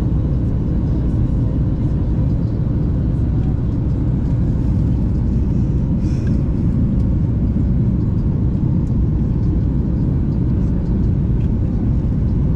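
Steady low roar of a Boeing 737 airliner's cabin in flight: jet engine and airflow noise, with a faint steady hum running through it.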